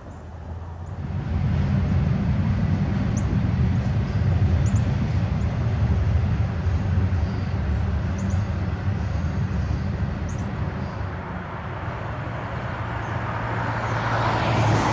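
A heavy engine running steadily with a low hum, growing louder about a second in.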